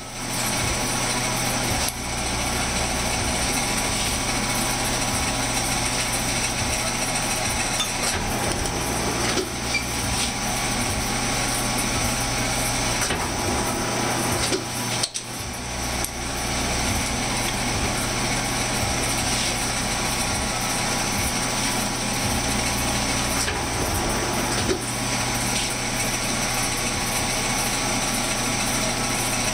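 Metal shaper running steadily, its ram stroking back and forth as a 45-degree tool bit cuts a chamfer on a part held in the vise, over a constant motor hum. The sound dips briefly about halfway through.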